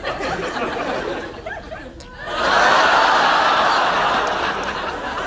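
Audience laughter: scattered voices and chuckles, then about two seconds in a loud wave of laughter swells up suddenly and tails off slowly.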